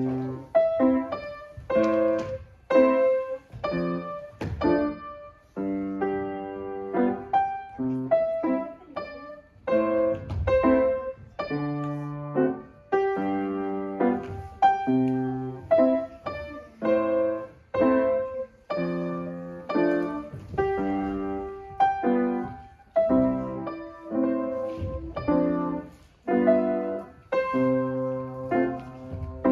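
Acoustic grand piano being played: a tune over chords, notes struck at a steady, moderate pace, each ringing and fading into the next.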